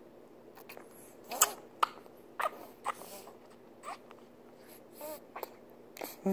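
Baby mouthing and chewing on its fist, making short smacking clicks and a few brief squeaky sounds with its mouth.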